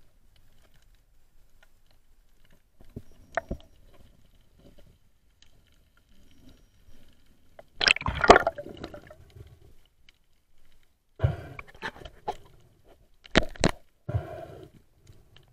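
Underwater sound picked up by a diving camera: scattered sharp clicks and knocks, with loud bursts of water noise about 8 seconds in and again several times in the last few seconds.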